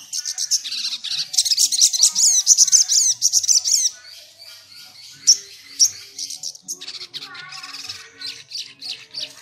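Male olive-backed sunbird singing in high, rapid chirps with steeply sliding notes. A dense fast run lasts a couple of seconds, then comes a pause broken by two sharp single notes, then another quick series near the end.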